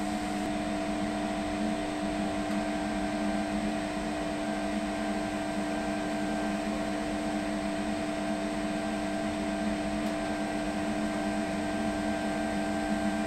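Green Mountain Grills Daniel Boone Prime pellet smoker running, its fan giving a steady hum with a few held tones.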